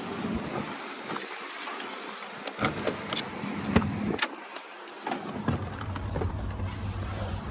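Steady rain hiss with a handful of sharp clicks and knocks in the middle, the loudest a little under four seconds in, and a low steady hum that sets in after about five and a half seconds.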